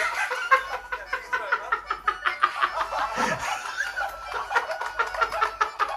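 Laughter, with many short sharp clicks throughout.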